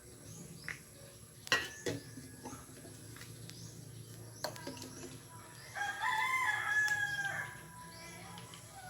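A rooster crowing once in the background, one call of about a second and a half, with a couple of sharp knocks earlier over a low steady hum.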